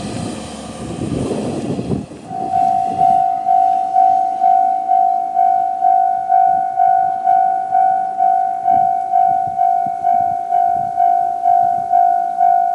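Japanese railway level-crossing warning bell, electronic, in the JR Central-type sound, starting about two seconds in and ringing about twice a second, each strike a clear ding that fades quickly: the crossing has activated for an approaching train. Before it, about two seconds of steady noise.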